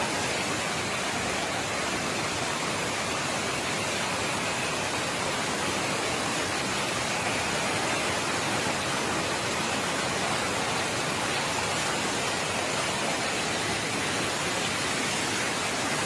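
Shallow water rushing and foaming over a concrete spillway, making a steady, even noise with no let-up.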